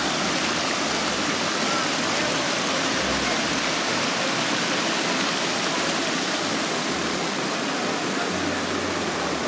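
Creek water rushing over a rocky cascade: a steady, even rush of flowing water.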